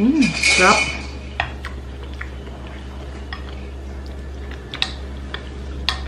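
Wooden spoon clicking and scraping against a ceramic bowl during eating: about half a dozen light, separate clinks spread over several seconds, over a steady low hum.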